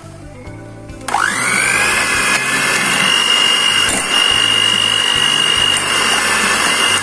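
Electric hand mixer switched on about a second in: the motor whine rises quickly to speed, then holds steady as the beaters cream softened butter in a steel bowl, and it stops near the end.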